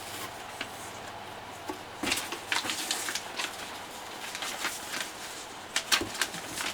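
Handling of a plastic model kit's box contents: a light knock about two seconds in, then scattered short rustles and crinkles of paper and plastic.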